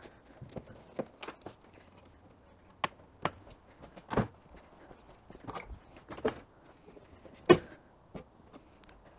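Scattered clicks and clunks of a Lomax kit car's fibreglass bonnet being unlatched and lifted, with a sharper knock about four seconds in and the loudest about seven and a half seconds in.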